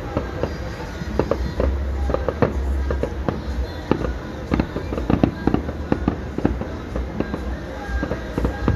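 Fireworks going off: a rapid, irregular string of sharp bangs and pops, with low rumbling between them.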